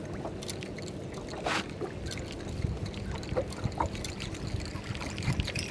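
Water lapping and splashing against the hull of a small skiff, with scattered small splashes and one stronger splash about a second and a half in, over a steady low hum.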